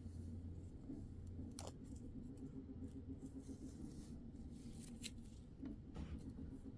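Faint crackling of a dried peel-off film being peeled from skin: a few short, crisp crackles, a cluster of them just before the middle and one more near the end, over a low steady hum.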